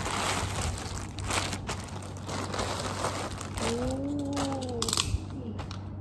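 Plastic mailer bags and plastic-wrapped packages crinkling and rustling as they are handled and unpacked by hand. About four seconds in, a short voiced sound rises and falls.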